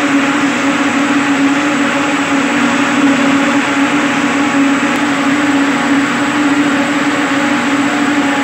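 Cotton-mill ring spinning frames running: a loud, steady whir of many spindles over a strong, constant machine hum.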